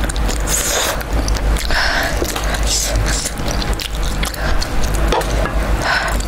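Close-miked, wet chewing and mouth smacking of someone eating spicy sauced chicken, with many small clicks, and chopsticks scraping and tapping on a wooden tabletop as pieces are picked up.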